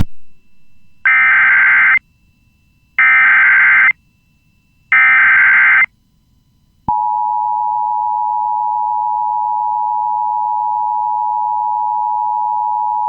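Emergency Alert System tones: three bursts of SAME header data, a modem-like warble about a second long each with a second's pause between them. About seven seconds in, the two-tone EAS attention signal (853 and 960 Hz) starts and holds steady. Together they mark the start of a new emergency alert broadcast.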